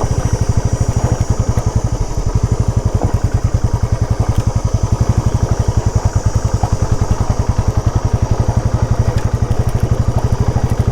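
Motorcycle engine running steadily at low revs on a rough, rocky dirt track, with a rapid, even pulsing exhaust beat.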